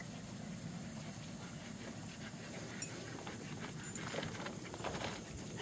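Faint panting and rustling from German Shepherd puppies moving about on grass, with a few light rustles in the second half.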